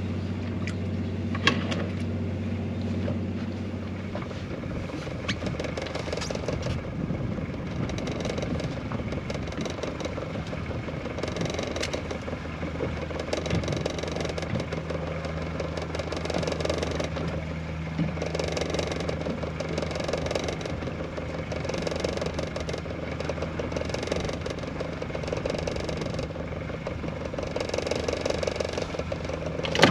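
Small fishing boat's engine running steadily, with a low hum whose pitch shifts about four seconds in, under a steady rush of wind and water.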